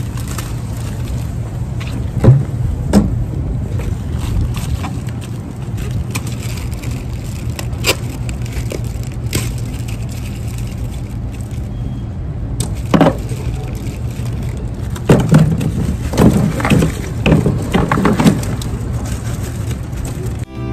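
Bagged ice cubes rattling and crunching in a plastic ice bag and clattering into a plastic cooler. Scattered knocks build to a longer run of clatter about three quarters of the way through, over steady low street-traffic noise.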